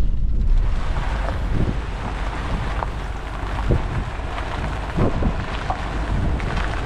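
Wind buffeting the microphone, with a low rumble and a steady rushing hiss that comes in about half a second in.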